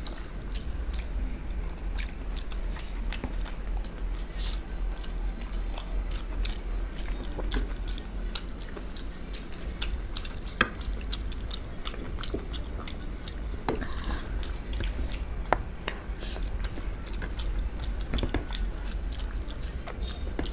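Two people eating rice and chicken curry by hand and chewing, with many small irregular mouth clicks, over a steady low hum and a faint high whine.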